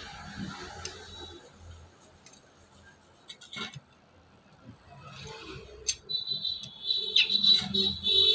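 A few sharp metal clicks from pliers working a brake caliper piston loose, then a steady high-pitched whistle starts about six seconds in and holds.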